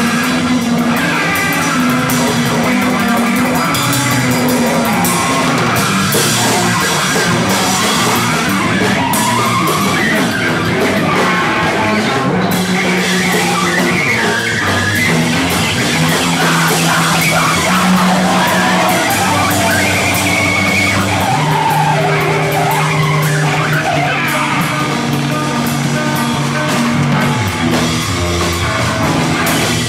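A band playing loud, dense rock live, with a low line of held notes that shifts pitch every second or two under the full wash of the band.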